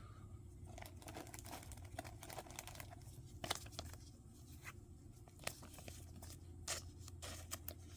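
Faint rustling and small clicks of trading cards and foil booster-pack wrapper being handled, with a few sharper ticks scattered through, over a low steady hum.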